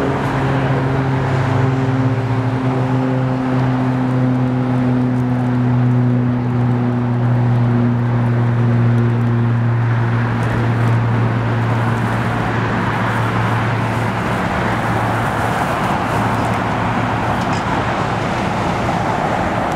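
Engine noise: a steady low hum with a few tones that slowly sink in pitch over the first ten seconds, giving way to a broad rushing noise that swells in the second half.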